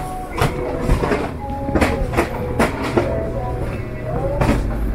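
Shop-floor ambience with a run of sharp, irregular clicks or taps about every half second, over faint steady and gliding background tones.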